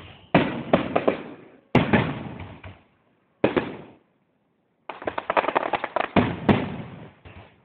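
Fireworks going off in a series of sharp bangs, each trailing off in crackling. Three separate blasts come in the first few seconds, then from about five seconds in a dense, rapid string of cracks.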